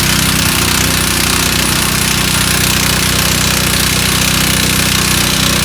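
A loud, steady power tool running continuously over an engine hum.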